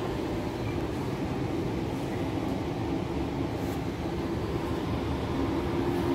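Interior running noise of a Sydney Trains Tangara electric train: a steady rumble of wheels on track, with the low, steady two-note whine of its Mitsubishi four-quadrant GTO chopper traction equipment, which fades early on and comes back strongly about four and a half seconds in.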